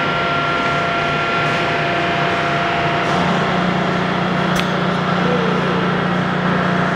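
Heavy Axelson 39 x 108 engine lathe running, its 25 hp main drive and headstock gearing giving a steady mechanical hum with a few steady tones. About three seconds in the low hum grows stronger, and a sharp click sounds a little past halfway.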